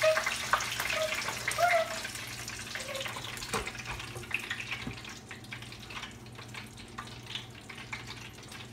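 Hot oil in an electric deep fryer sizzling and crackling as chicken strips fry, growing gradually quieter.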